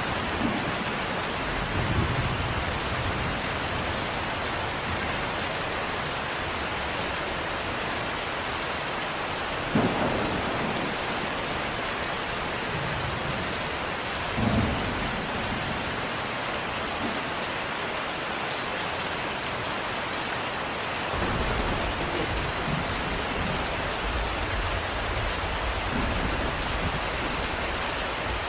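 Steady rain hissing, with a few single louder drops or knocks. A low rumble of distant thunder swells in over the last several seconds.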